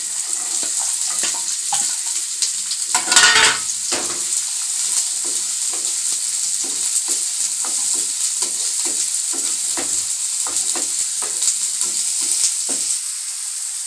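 Chopped shallots sizzling in hot oil in a nonstick frying pan, stirred with a wooden spatula. The spatula strokes come two or three times a second over a steady sizzle, with a louder stir about three seconds in.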